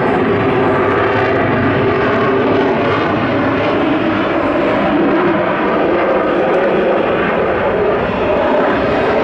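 Sukhoi Su-35's twin AL-41F1S turbofan jet engines in flight, a loud, steady jet noise with no break.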